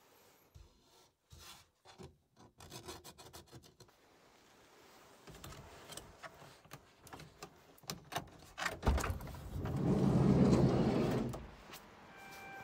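Scratchy rubbing on the frosted inside of a car's side window, then about nine seconds in a louder rushing rub lasting a couple of seconds as the side window is lowered.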